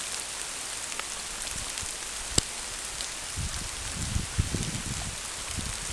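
Heavy tropical downpour: a steady, even hiss of rain falling on foliage and a wet road. A single sharp tap comes about two and a half seconds in, and low bumps rumble through the second half.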